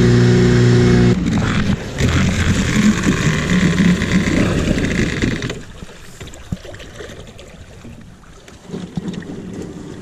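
Suzuki 9.9 hp outboard motor running at speed, with water spray hissing along the hull. Its steady note wavers after about a second, and the engine sound drops away suddenly about five and a half seconds in, leaving only faint water and wind noise.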